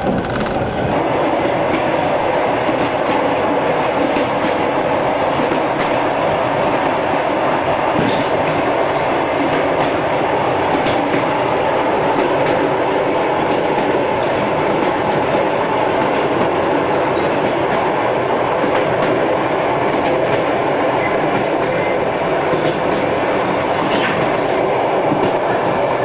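Passenger train running along the track: a steady rumble of the moving carriage with scattered faint clicks of the wheels over the rails.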